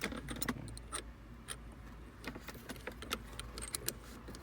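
Irregular light clicks and rattles of a shift knob's small parts being handled and screwed together by hand.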